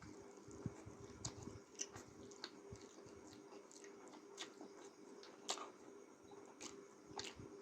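A person chewing noodles close to the microphone, quietly, with irregular small wet mouth clicks and smacks.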